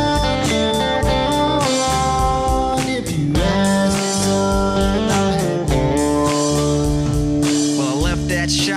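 Background music: an instrumental break in a country song, electric guitar over a steady beat, with no singing.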